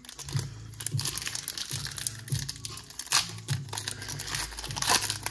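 Foil wrapper of a Pokémon card booster pack crinkling and tearing as it is pulled open by hand: a dense run of crackles and rustles.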